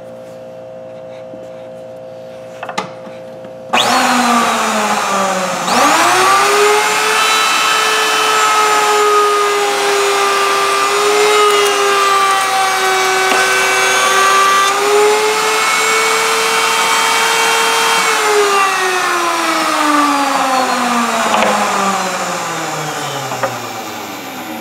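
Table-mounted router switched on about four seconds in, its whine rising to full speed, then running steadily while a test piece is fed past a profiling bit that cuts a full radius on the edge. The motor is switched off near eighteen seconds and winds down with a long falling whine.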